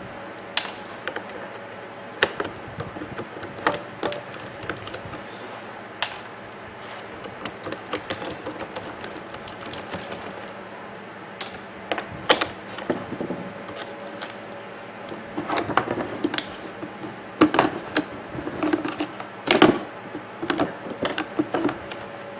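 Scattered clicks, ticks and light knocks of a screwdriver backing out small screws and of the coffee maker's plastic parts being handled, coming thicker in the last several seconds.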